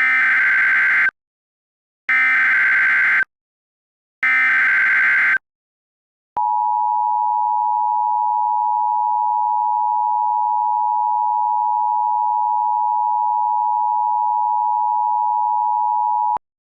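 Emergency Alert System tones: three SAME header data bursts, each about a second long with a second's gap between them, followed by the steady two-tone EAS attention signal (853 and 960 Hz) held for about ten seconds and cutting off suddenly.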